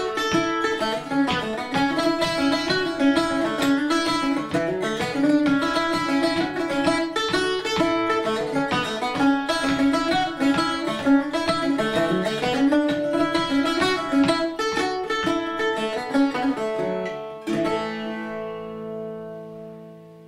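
Irish bouzouki built by Eric Stiegler, played solo in a quick jig rhythm of fast, dense plucked notes. Near the end it lands on a final chord that rings on and fades away.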